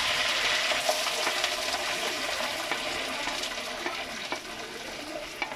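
Chopped onions sizzling as they drop into hot wood-pressed sesame oil in a clay pot, the hiss slowly dying down as they cool the oil, with a few light clicks of a wooden spatula pushing them off a plate.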